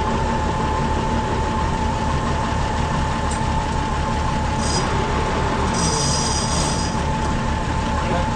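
Diesel tractor engine running with a steady low rumble and a constant whine. Short high-pitched metallic squeals come in about five seconds in and again after about six seconds as the tractor creeps forward.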